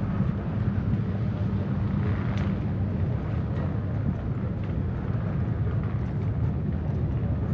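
Marine One helicopter flying off, a steady drone of rotor and turbine engines.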